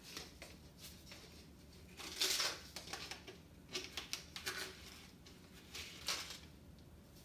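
Plastic scoop scraping and rustling in a tub of oxygen-cleaner powder: a few short, scratchy scrapes, the loudest about two seconds in.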